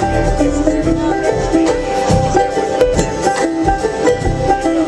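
Acoustic band playing an instrumental bluegrass passage live, with quick plucked banjo notes.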